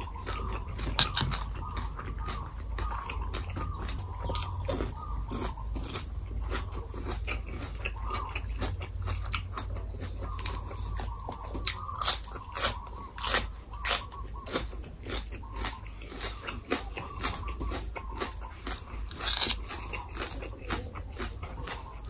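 A person chewing and crunching green papaya salad and raw water morning glory stems, a steady run of sharp crisp crunches with wet chewing between them.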